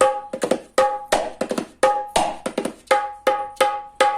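Handmade sheesham-wood dholak played with the hands in a quick, uneven rhythm of strokes, the open strokes ringing with a clear pitch. It is being played to check its tone, and its thap and chaat strokes come out crisp and true.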